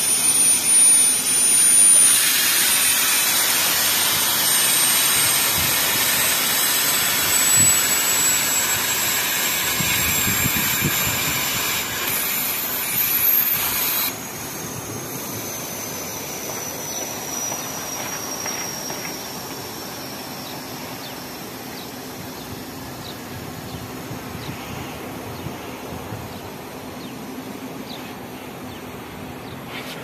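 Refrigerant gas hissing out of an air conditioner's refrigerant line as the freon is let out, with a thin high whistle that slowly falls in pitch. The hiss drops sharply about fourteen seconds in and carries on more quietly.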